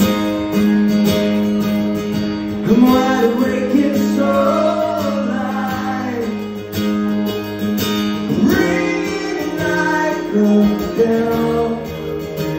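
Live acoustic guitar strummed steadily, with a man singing over it in two phrases: one starting about three seconds in, the other about eight and a half seconds in.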